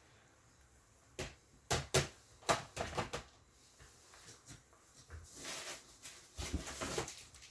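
Hard plastic graded-comic slabs being handled and set down: several sharp clacks and taps over the first three seconds, then a softer rustle.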